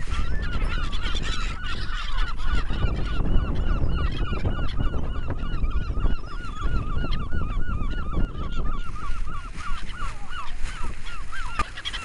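A flock of gulls calling overhead: one bird repeats a short call rapidly, about three or four a second, each call rising then falling in pitch, with fainter calls from other gulls among them. The run of calls stops just before the end, over a low rumble of wind on the microphone.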